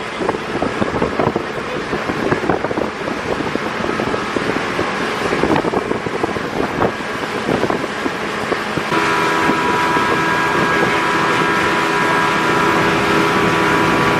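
A motorboat's engine running under way, with wind buffeting the microphone. About nine seconds in, a steady engine drone with a whine in it comes to the fore and holds.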